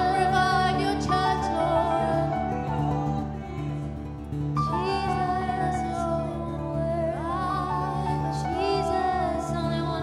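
A worship song: voices singing over a steady held instrumental backing.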